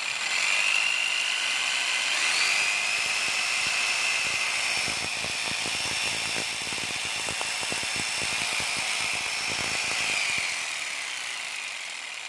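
Makita electric jigsaw running on a test, a high motor whine with a fast clatter of the blade mechanism, its pitch rising in the first seconds and then holding steady. It winds down near the end as the trigger is released.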